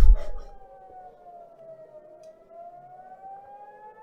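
Civil defense warning siren wailing, its pitch sliding slowly down and then back up. A brief loud burst of noise at the very start dies away.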